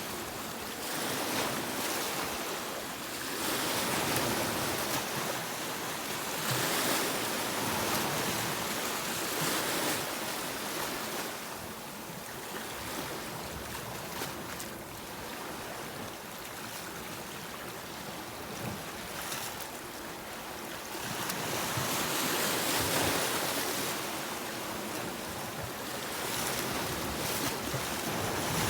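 Sea waves breaking and washing on a beach, a steady hiss of surf that swells and falls back every few seconds.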